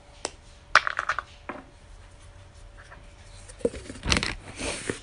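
A few light clicks and taps from handling a plastic dog puzzle and a utensil. Near the end comes a louder rustle and thump as a hand brushes close to the phone's microphone.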